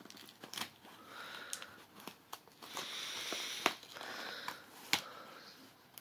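Small cardboard mailing box handled and turned over by hand: rustling scrapes of cardboard against fabric and fingers, with several sharp taps and clicks.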